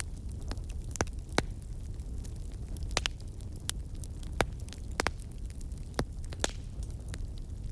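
Campfire crackling: a steady low rumble of burning wood with sharp pops and snaps, roughly one every second or so.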